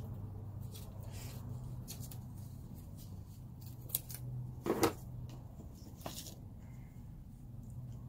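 Scissors snipping through thin cardboard, a handful of separate cuts and paper rustles, the loudest about five seconds in, over a steady low hum.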